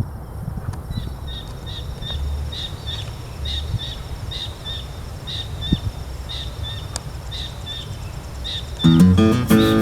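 Javan kingfisher calling: a run of short, high, clipped notes at about two a second, some in quick pairs, over a low background rumble. Music comes in loudly near the end.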